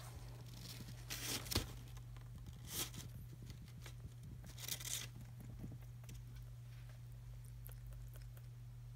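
Newspaper bedding rustling in three short bursts, about a second, three seconds and five seconds in, as ducklings shift on it. A steady low hum runs underneath.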